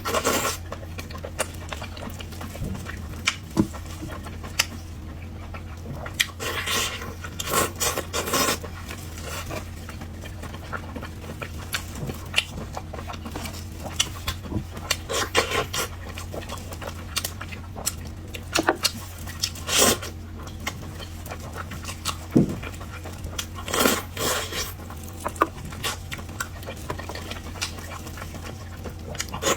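Mouth sounds of a person eating clear-stewed lamb chops: wet chewing and smacking in irregular short bursts, with a sharp click now and then, over a low steady hum.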